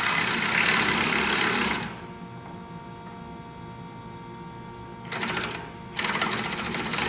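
Cordless power wrench spinning and tightening the nuts on a car's upper control arm bolts, in three runs: about two seconds at the start, a short burst about five seconds in, and a longer run near the end, each a fast whirring chatter with a high whine.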